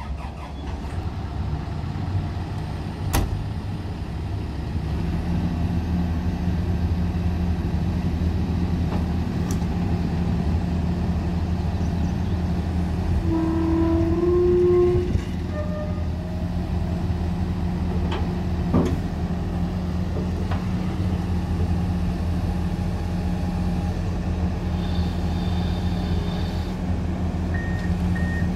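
Komatsu PC170LC-11 hydraulic excavator running, its diesel engine a steady drone that grows louder about five seconds in as the boom and arm work the grapple. Brief whining tones come about halfway through, and a repeating warning beep starts near the end.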